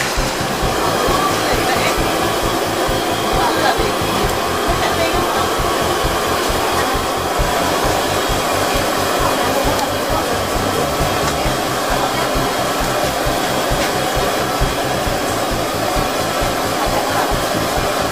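Hot oil sizzling steadily in large woks as thin slices of arrowhead corm deep-fry, a loud continuous hiss.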